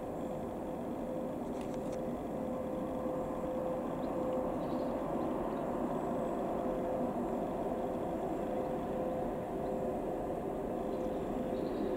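VL80k electric locomotive hauling a freight train as it approaches: a steady running hum with a single held tone, growing slowly louder.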